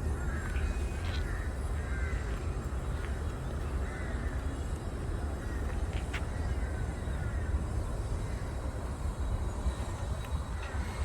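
Birds calling repeatedly in short, quick falling notes, in bursts at first and again near the end, over a steady low rumble. A single sharp click comes about halfway through.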